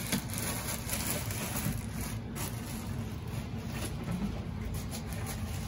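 Steady low background rumble and hiss, with faint scattered rustling and handling noises.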